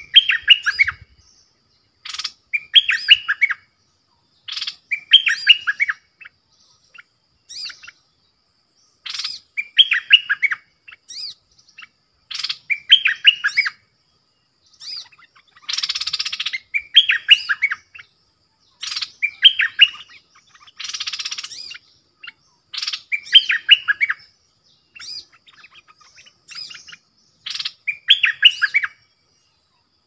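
Stripe-throated bulbuls singing: short, bubbly warbled phrases repeated every two to three seconds. Twice around the middle the phrases give way to a longer harsh, rasping chatter.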